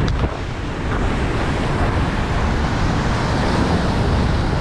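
Sea waves washing against the shore, with wind rumbling on the microphone.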